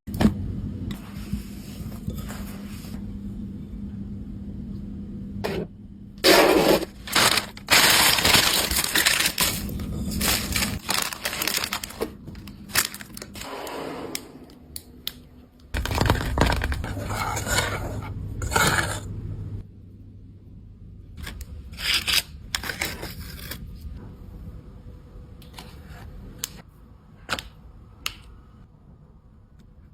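Kitchen handling sounds from food preparation: repeated scraping, cracking and clattering of dishes and utensils in sudden bursts, busiest and loudest in the first two-thirds.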